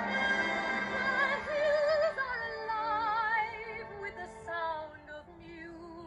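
Music: a held orchestral chord gives way to a high, opera-style voice singing with wide vibrato, growing quieter in the second half.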